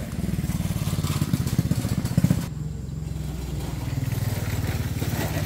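A small engine running steadily with a fast, even beat.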